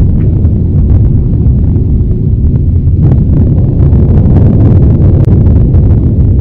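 Loud, steady low rumble, a deep noisy roar with faint scattered crackles above it.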